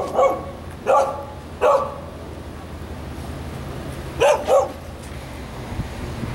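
Dog barking from inside a parked car: single barks about a second in and again just under a second later, then two quick barks a little after four seconds in.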